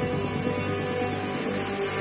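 Instrumental background music with held, steady tones.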